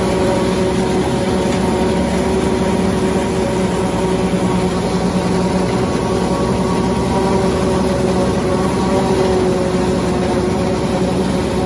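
Claas self-propelled forage harvester running under load as its rotary corn header feeds and chops standing corn: a loud, steady machine drone with a constant hum.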